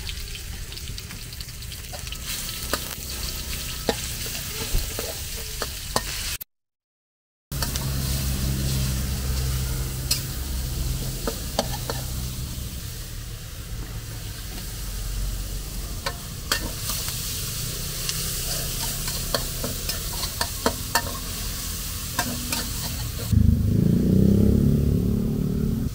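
Minced pork sizzling in a wok while a metal spatula stirs it, scraping and clicking against the pan. The sound drops out for about a second, six seconds in, and near the end a louder low rumble comes in for a couple of seconds.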